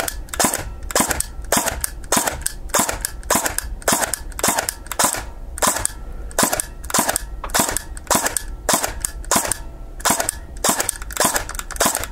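Airsoft electric gun (AEG) firing shot after shot with the trigger held, about two shots a second in an even rhythm: the Perun AB++ MOSFET's DMR mode holding a half-second delay between shots.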